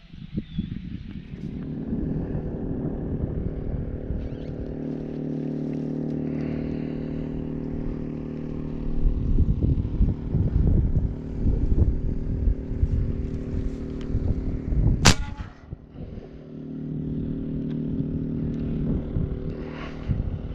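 A motor running with a steady hum, broken midway by irregular low rumbling, and one sharp crack about fifteen seconds in.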